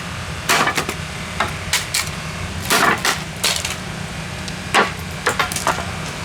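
Plastic casing of a Magnavox alarm clock radio being smashed apart: about a dozen short, sharp cracking and crunching impacts at an irregular pace.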